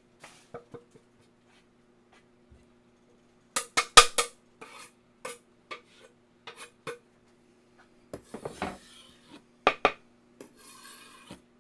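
Kitchen clatter: a run of sharp metal clinks and clanks from a pot and utensils, loudest about four seconds in, with scraping and rubbing sounds in the later part. A faint steady hum runs underneath.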